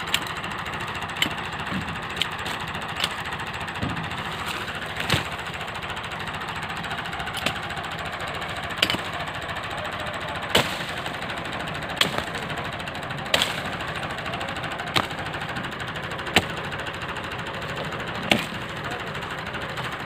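Axe chopping the branches of a felled tree into firewood: about fourteen sharp chops, a second or two apart, over steady background noise.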